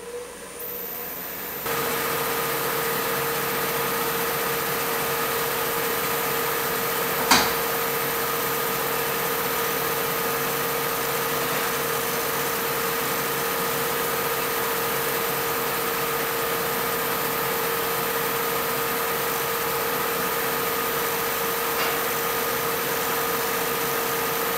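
Robust wood lathe spinning a small wet-wood bowl at high speed while a round-nose negative rake scraper takes a light, slow shearing cut across its outside: a steady motor whine over an even hiss. The sound gets louder about two seconds in, and there is one sharp click about seven seconds in.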